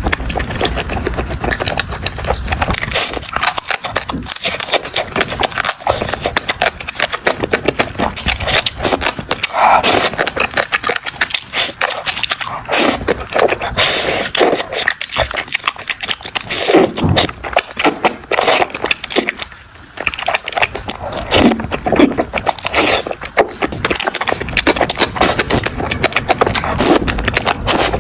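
Close-miked eating: a continuous run of chewing, crunching and mouth clicks.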